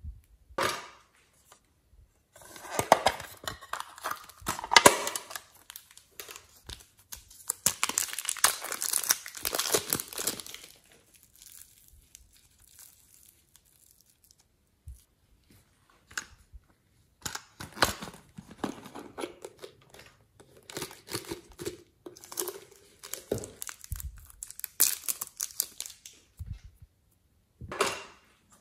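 Bursts of crinkling and crackling handling noise from hands working soft clay on slime and handling a plastic-wrapped container, with a quieter spell in the middle.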